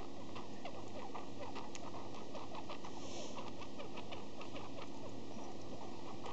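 Pet budgie making a run of soft, rapid squeaks and clicks, several a second without a break, which the owner takes for the sniffles.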